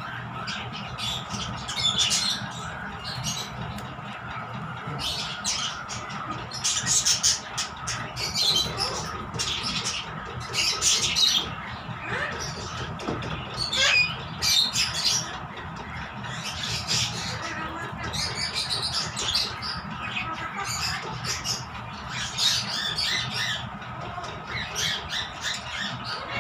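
Harsh animal calls repeating about once a second over a steady background hum.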